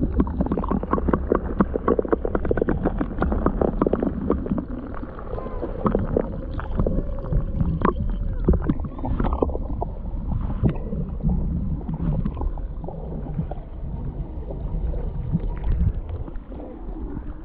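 Footsteps crunching and clicking on a rocky trail, fast and irregular, over a steady low rumble of wind on the microphone.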